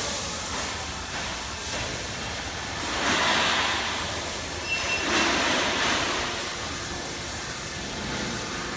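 Automatic HVAC duct production line running: a steady machinery din that swells louder twice, about three and five seconds in, with a small click between the swells.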